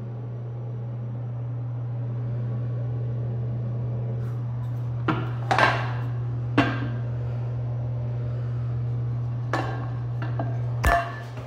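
Porcelain toilet tank lid knocking and clinking as it is handled, a scattering of sharp knocks from about halfway in, the heaviest near the end. A steady low hum runs underneath.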